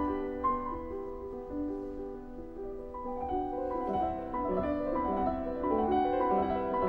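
Background music on solo piano: a slow, gentle piece with several notes sounding at once, chords changing every fraction of a second.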